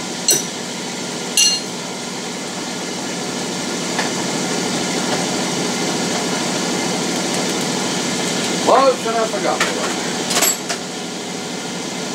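Metal lathe running steadily while a pin is turned on it. Sharp metal clinks of tools against the lathe come twice in the first second and a half, and once more near the end.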